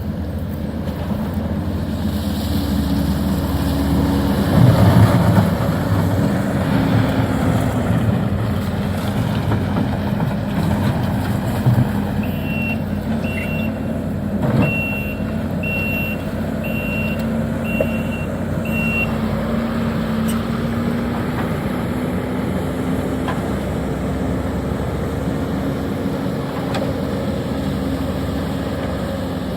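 Heavy diesel engine of a demolition excavator running steadily, its pitch rising and falling as it works, with a few knocks of debris. A backup alarm beeps about seven times, roughly once a second, in the middle.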